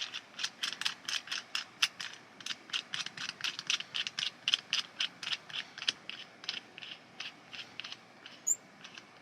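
Ulanzi LS04 pole clamp clicking as it is worked around a pole: a long, even run of sharp ratchet-like clicks, about four a second, that grow sparser in the last few seconds.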